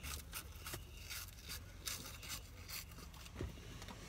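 Faint, irregular crackly crunching and rustling from a cheese-puff snack being eaten and handled, over the low steady rumble of a vehicle cabin.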